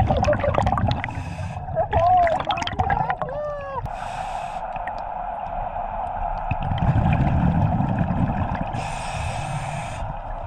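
Scuba diver breathing through a regulator underwater: short hisses of inhaled air alternating with the bubbling of exhaled air, strongest about seven to ten seconds in. A few short muffled vocal sounds come through the mouthpiece in the first four seconds.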